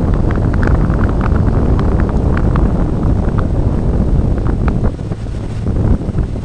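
Wind rumbling over the microphone on the bow of a motorboat under way, over the rush of the boat through the water, with scattered short crackles. It eases a little near the end.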